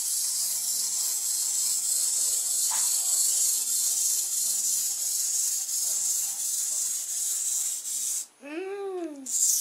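Wind-up clockwork motor of a clip-together plastic Stegosaurus toy running as it walks, a steady high whirring hiss from its gear train. The whirring stops suddenly near the end and is followed by a brief whoop that rises and then falls.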